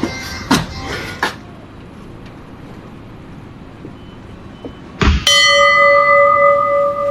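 A few sharp knocks, then a heavy thud about five seconds in, followed at once by a loud, steady horn-like tone held to the end.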